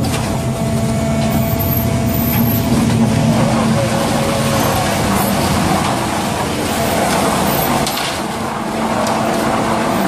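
Mobile concrete mixer pump running steadily while its mixing drum turns and discharges wet concrete into the pump hopper.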